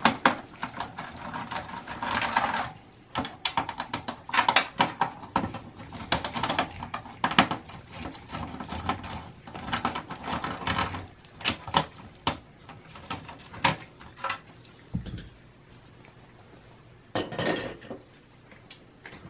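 A screwdriver working the screws of the CPU heatsink and fan in a Dell OptiPlex 7050, with irregular clicks, metal clinks and rattles. A short louder clatter comes near the end as the heatsink assembly is handled.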